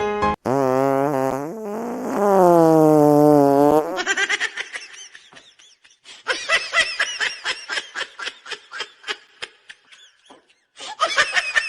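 A long, pitched fart sound, like that of a prank fart machine, wavering and dipping in pitch for about three and a half seconds. It is followed by a run of quick, fading laughter and a second short burst of laughter near the end.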